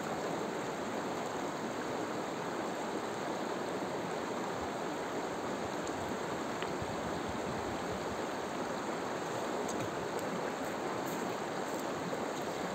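Rocky river running over rapids: a steady rush of water.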